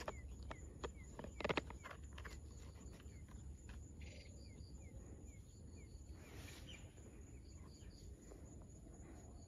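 A few faint clicks and knocks, the loudest about a second and a half in, then faint, evenly repeated insect chirping over a low hum.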